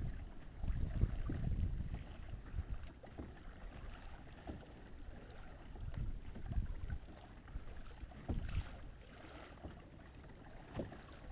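Wind buffeting the microphone in uneven gusts, with water and a few light knocks or splashes around a Hobie Outback kayak.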